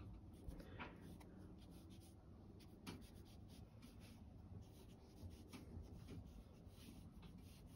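Wide, water-loaded bamboo-handled wash brush stroking across coarse 100% cotton watercolour paper to wet it, heard as faint, intermittent soft brushing.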